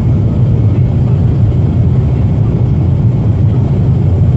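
Boeing 737-400 cabin noise in flight: its CFM56 jet engines and the airflow make a steady low rumble, heard from inside the cabin.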